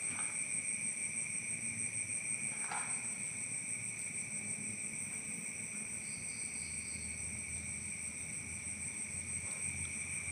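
Night insects, crickets, trilling steadily in several high pitches at once, with a faint short pulsing chirp about six seconds in.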